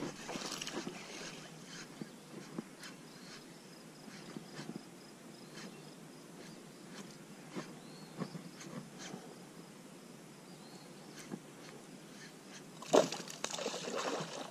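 Quiet lake-side air with scattered small ticks while a lure is reeled in, then near the end a splash at the water surface close to the boat.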